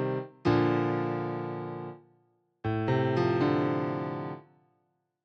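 Sampled electric piano from a Korg Kronos sound library playing held chords: a new chord struck about half a second in and another about two and a half seconds in, with a note added just after, each fading away.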